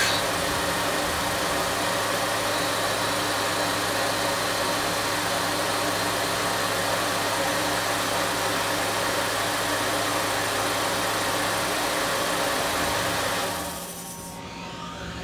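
Tormach CNC mill's spindle running while a turning tool cuts the spinning air nozzle workpiece under coolant spray: a steady machine hum with a broad hiss. About a second and a half before the end the cut and coolant stop, leaving a quieter hum.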